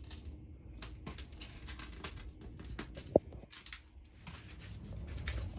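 Peel-and-stick vinyl backsplash tile sheets being handled, with crackly rustling and tearing as backing and sheets are worked, and one sharp tap about three seconds in.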